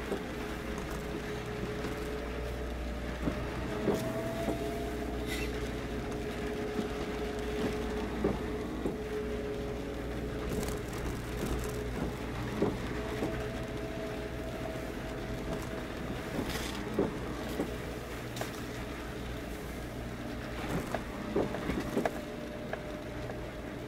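Harbour ambience beside moored purse-seine fishing boats: a low steady rumble with faint held hums that come and go every few seconds, and scattered light taps and clicks.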